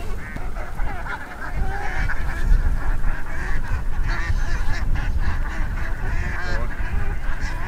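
Waterfowl honking, many short wavering calls one after another, over a steady low rumble.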